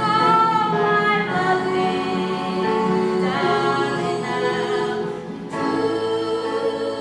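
A woman singing a slow melody of long held notes, with a short break about five and a half seconds in before she takes up a new held note.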